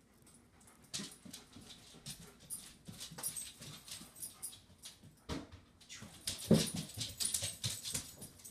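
A dog moving about close by: scattered small clicks and rustles, with a louder sound about five and a half and again about six and a half seconds in.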